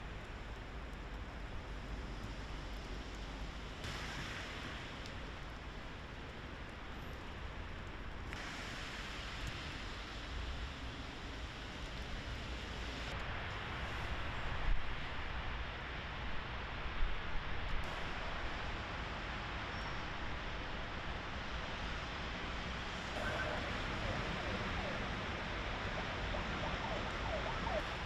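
Steady outdoor traffic and street noise, a hiss of vehicles and wind, changing in character several times as the shots change, with a few brief louder knocks around the middle.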